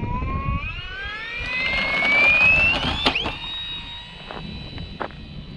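Electric motor and propeller of a foam RC model plane whining and rising steadily in pitch as the throttle is opened. A sharp click comes about three seconds in, after which the whine holds at a steady pitch.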